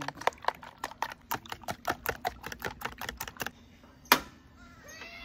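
A rapid run of sharp clicks or taps, about six a second, stopping after roughly three and a half seconds, then one loud sharp knock about four seconds in.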